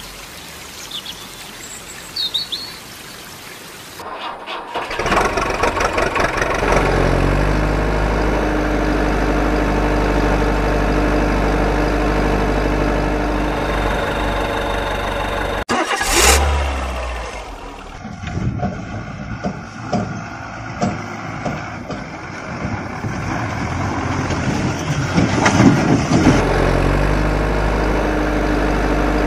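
Running water trickling over stones with a couple of faint bird chirps. Then, about four seconds in, a truck engine starts and runs steadily. About sixteen seconds in there is a sharp falling hiss-like sweep, followed by uneven revving, and near the end the engine settles back to a steady idle.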